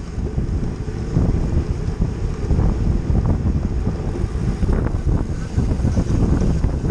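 Wind buffeting the microphone of an action camera on a road bicycle moving at racing speed: a loud, unsteady low rumble that swells and dips.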